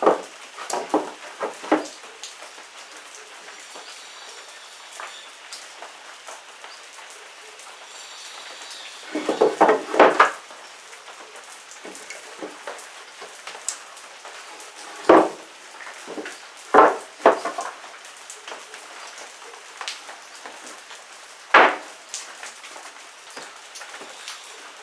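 Scattered wooden knocks and clatters, like boards being handled and set down on a bench. There is a quick run of knocks about nine to ten seconds in, then single sharp knocks a few seconds apart, over a faint steady hiss.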